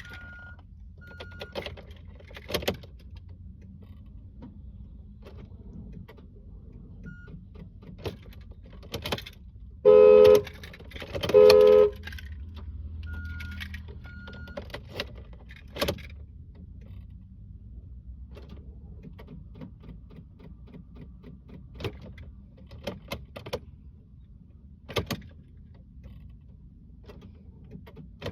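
Scattered clicks and rattles over a steady low rumble, with a few short high beeps. About ten seconds in a car horn sounds twice, two loud honks of under a second each.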